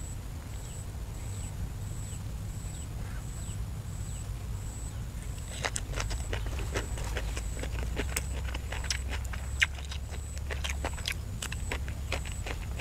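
A person chewing a mouthful of green papaya salad close to the microphone: wet smacking and crunchy clicks begin about five and a half seconds in and go on densely, over a low steady rumble.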